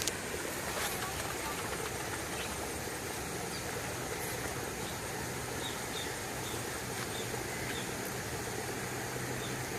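Boat engine idling with a steady low hum under an even hiss of wind and water, with a few faint light ticks partway through.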